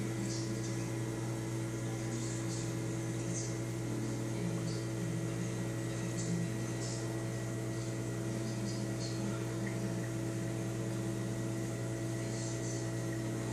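Steady electrical hum of running reef-aquarium equipment such as pumps, several constant tones over a faint hiss.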